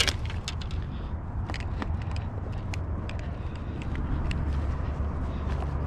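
Steady low outdoor rumble, with scattered sharp clicks and knocks of shoes and gear shifting on the rocks of a riverbank.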